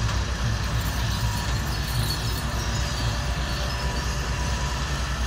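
Diesel engine of a Volvo EW145B wheeled excavator running steadily with a fast, low chugging while the machine digs and lifts a full bucket of sand.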